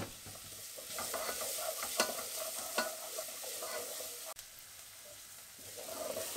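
Wooden spoon stirring chopped onion, garlic and thyme frying in oil in a pan: a light sizzle under repeated scraping strokes of the spoon. The stirring pauses briefly a little past the middle, then resumes near the end. The onions are being sweated off.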